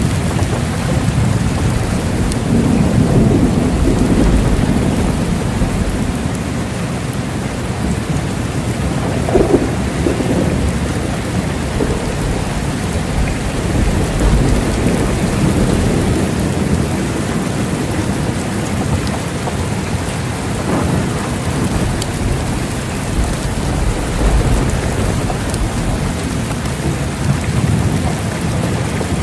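Steady rain with thunder rumbling low underneath in slow swells, and one brief louder peak about a third of the way in.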